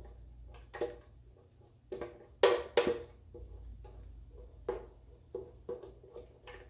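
Spatula scraping and knocking against a plastic food processor jar as thick brownie batter is scraped out. The knocks come irregularly, about eight of them, the two loudest close together about two and a half seconds in.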